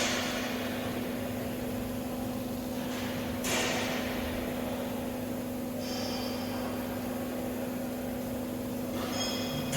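Steady electrical machine hum, with a short sharp hiss at the start and another about three and a half seconds in, and faint high-pitched tones near the end.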